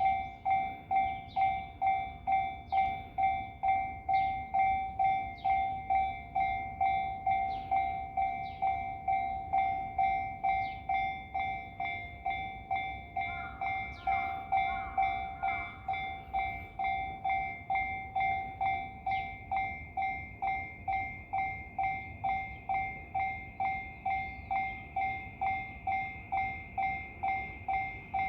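Japanese railway level-crossing warning bell at the Yamanote Line's Daini Nakazato crossing, ringing steadily at about one and a half dings a second: the crossing is closed for a train. A low rumble runs underneath.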